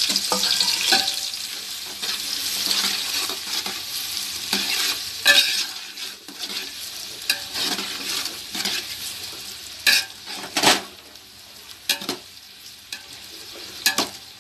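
Freshly added sliced onions sizzling in hot oil in a large metal pot while a metal ladle stirs them, scraping and knocking against the pot several times. The sizzle is loudest at first, just after the onions go into the oil, and settles lower after a few seconds.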